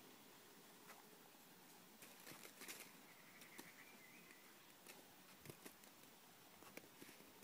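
Near silence: faint background hiss with a few soft scattered ticks and a brief faint high note about halfway through.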